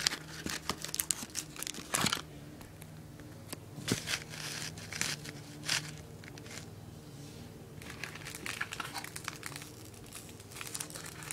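Packaging crinkling and rustling as it is handled and pulled apart, in irregular spells of crackles, with a faint steady hum underneath.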